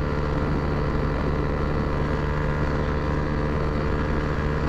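Honda Titan 150's single-cylinder four-stroke engine running through a free-flowing Roncar aluminium sport exhaust at a steady pitch, a loud racket with the motorcycle under way.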